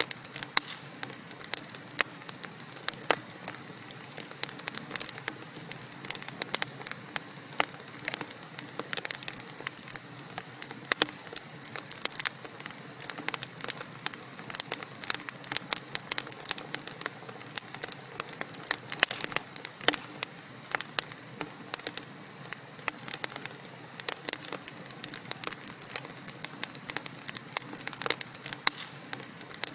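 Wood fire burning in a fireplace: logs crackling with irregular sharp pops and snaps over a steady hiss.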